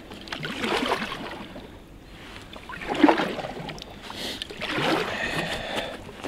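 A paddle sweeping and splashing through calm water as a packraft is paddled, roughly one stroke every two seconds.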